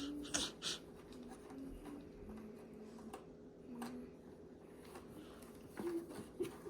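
Cardboard jigsaw puzzle pieces being handled and pressed onto a table: a few light clicks and taps, the sharpest in the first second, with some short, faint low-pitched sounds in between.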